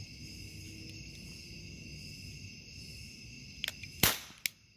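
A toy cap gun firing: a couple of small clicks, then one loud, sharp cap crack about four seconds in and a fainter crack half a second later. Crickets chirr steadily underneath.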